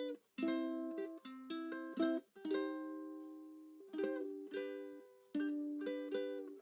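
Background music: chords strummed on a plucked string instrument such as a ukulele, each chord ringing out and fading before the next, with one chord left to ring longer near the middle.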